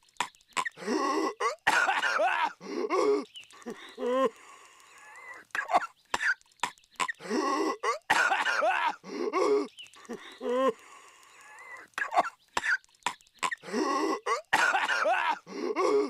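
Cartoon voice-acted coughing: a man's voice hacking and wheezing violently in fits of harsh coughs with strained, pitched gasps between them. The same fit comes round again about every six and a half seconds, as an edited loop.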